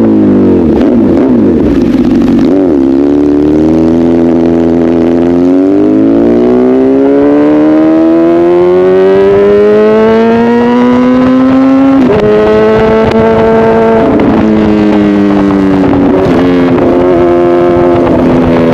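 Honda CBR1000RR inline-four with an SC-Project aftermarket exhaust, pulling hard. Its pitch climbs steadily for several seconds, then drops sharply at a gear change about twelve seconds in. After that it holds and dips with throttle changes near the end.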